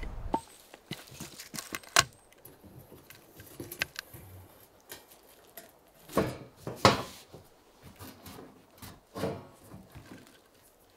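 Handling noises as a metal chimney pipe and a sheet-metal wall plate are worked into place against a wooden wall with gloved hands: scattered clicks, light knocks and scrapes. There is a sharp click about two seconds in and louder scraping around six to seven seconds in and again near the end.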